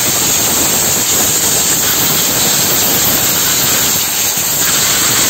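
Compressed-air blow gun giving a loud, steady hiss as it blows water out of the engine bay's electrical connectors after washing, to dry them so the engine can be started.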